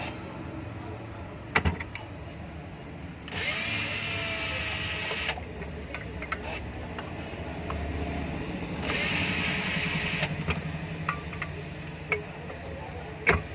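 Hand-held electric drill used as a screwdriver, run in two bursts of about two seconds each to back out the screws of a ceiling fan's housing. A few sharp clicks come in between the runs.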